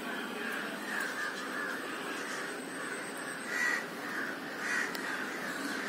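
Crows cawing over and over, with two louder caws about a second apart in the second half.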